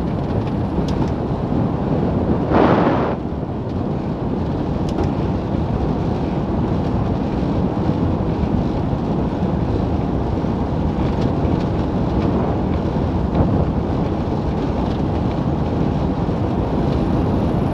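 Milan Mk4 velomobile rolling at about 35 km/h: a steady rush of wind noise on the microphone mixed with tyre noise on the road. There is a brief louder swell about three seconds in.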